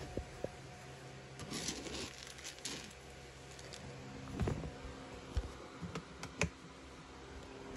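Plastic container and lid being handled: a stretch of rustling, then several short sharp clicks and knocks.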